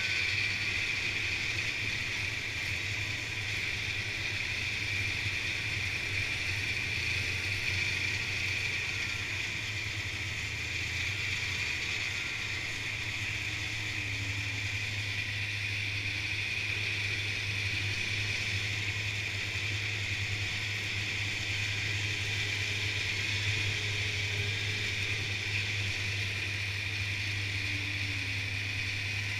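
Snowmobile engine running at a steady cruising speed while riding along a snow trail: a constant low drone with a steady high-pitched whine above it, unchanging throughout.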